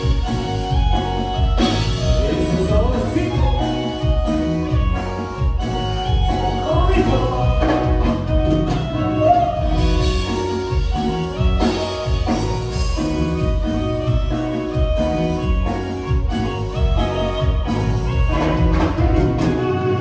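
Dance-band music in Oaxacan chilena style, with a steady bass beat and singing.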